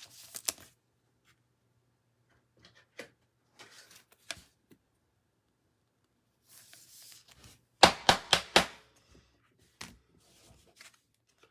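Trading cards and foil pack wrappers being handled at close range: scattered rustles and light taps, then a quick run of sharp card taps about eight seconds in, the loudest part.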